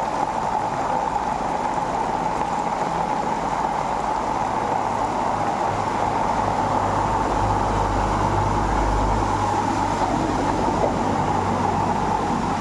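Floodwater rushing steadily, with a deeper rumble swelling about seven seconds in.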